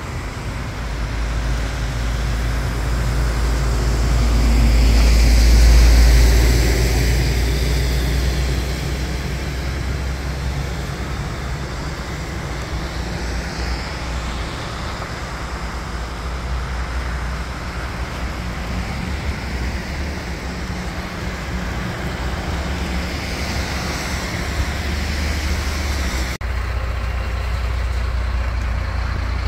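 Road traffic with a heavy vehicle's engine running close by: a steady low rumble that swells about six seconds in and changes abruptly near the end.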